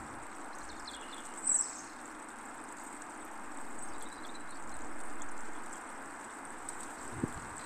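Steady outdoor background noise with a few short bird chirps: one falling chirp about a second and a half in, and a fainter one around four seconds. A soft knock comes near the end.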